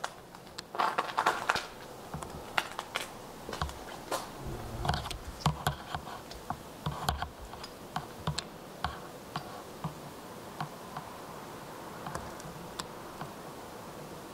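Footsteps crunching on thin snow: irregular crisp clicks and crunches, thickest just after the start and thinning out toward the end.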